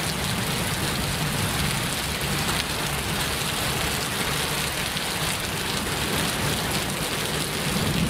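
Rain falling steadily, an even, unbroken hiss of a downpour.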